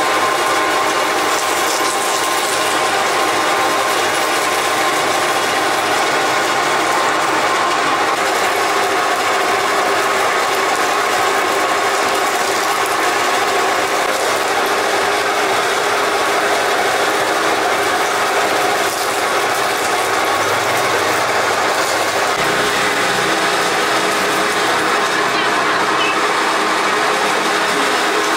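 A machine running steadily with a continuous mechanical rattle.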